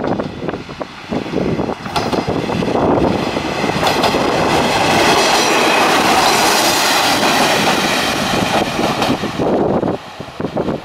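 Kanto Railway KiHa 2400 single-car diesel railcar passing close by: its diesel engine and wheels on the rails build up to a loud peak about six seconds in, with clicks over the rail joints, then fall away quickly as it recedes. Wind buffets the microphone at the start and end.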